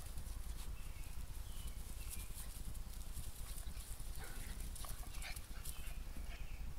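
Puppies giving scattered short, high yips and whimpers, more frequent from about four seconds in, over a steady low rumble.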